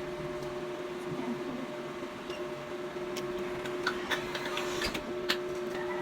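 A steady mechanical hum, with small scattered clicks and taps that come more often in the second half.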